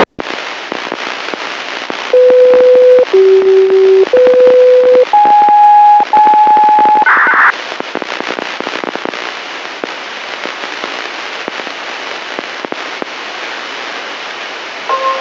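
Heavy static hiss and crackling from a weak, distant municipal disaster-prevention radio transmission received on a scanner. About two seconds in, five steady electronic tones of about a second each sound in sequence, dipping and then stepping up in pitch, followed by a brief burst of noise, then only static again.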